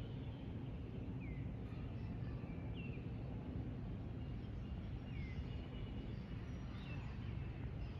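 Songbirds chirping a few times, short sweeping notes, over a steady low rumble.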